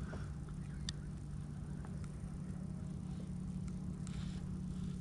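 Faint steady low hum with a few light clicks and a brief rustle about four seconds in, as a spinning rod and reel are held and handled.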